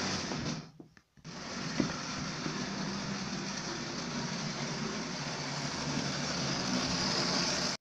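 Electric motor and gears of a Lima model diesel locomotive whirring steadily as it runs along the track. The sound drops out briefly about a second in and cuts off suddenly at the end.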